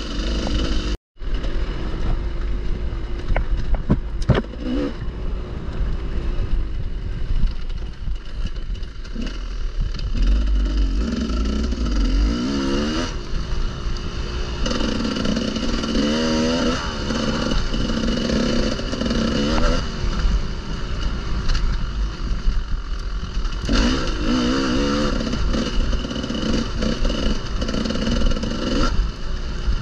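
Enduro motorcycle engine under way off-road, its pitch repeatedly rising and falling as the throttle opens and closes. The sound drops out briefly about a second in.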